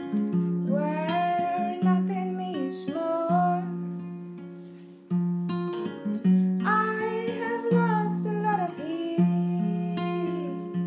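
Acoustic guitar picked in a steady repeating pattern, with a woman's voice singing two phrases over it, the first starting about a second in and the second around six seconds in.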